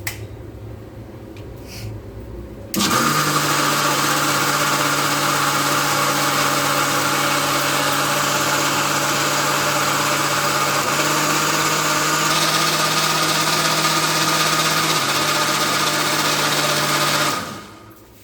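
Butterfly Arrow 500 W mixer grinder motor switched on about three seconds in, running steady with a loud whine while blending juice in its medium stainless steel jar. It shifts slightly in pitch twice, then is switched off near the end and winds down.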